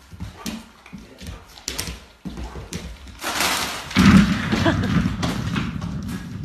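A dog jumps at a wrapped package hung overhead, its paws thudding on a wooden floor. About four seconds in, the package gives way and a load of tennis balls pours out, bouncing and rolling across the wooden floor in a loud clatter.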